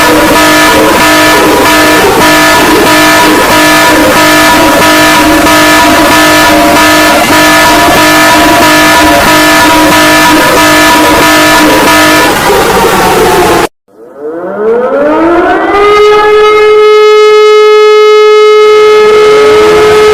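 Loud alarm sirens. A steady multi-tone alarm pulses rapidly, sags slightly in pitch and cuts off abruptly about two-thirds of the way through. After a moment of silence, a siren winds up, its pitch rising over about two seconds, then holds a steady tone.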